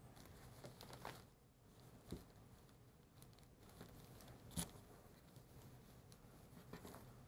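Very faint handling sounds with a few soft clicks: a rubber band being wrapped around a folded cotton T-shirt, the sharpest tap a little after four and a half seconds.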